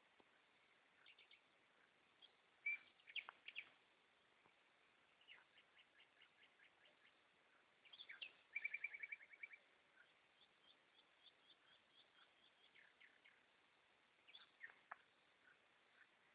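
Goldfinches singing: faint, scattered twittering chirps and short trills, with the loudest passage a fast run of repeated notes about eight seconds in.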